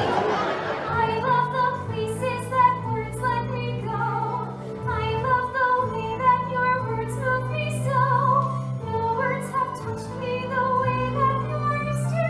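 A woman singing a musical-theatre song over orchestral accompaniment, with held low notes under the melody. A brief rushing swell at the start.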